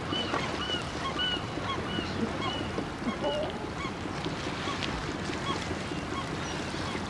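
Gulls calling in short, repeated cries, over a steady wash of wind and water.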